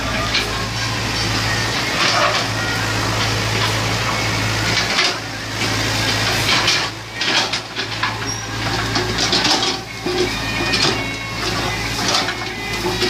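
Excavator engine running with a steady low hum, over rattles and knocks from the working machine. The engine hum fades about five seconds in and comes back near the end.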